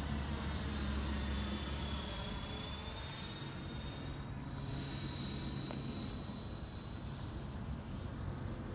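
Twin 80 mm electric ducted fans of a Freewing F-14 Tomcat model jet, heard as a high whine over a rushing hiss as it flies overhead. The whine's pitch slides slowly as the jet passes.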